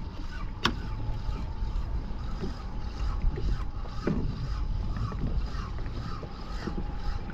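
Water lapping and slapping against a sea kayak's hull, with wind rumbling on the microphone. A single sharp click comes under a second in.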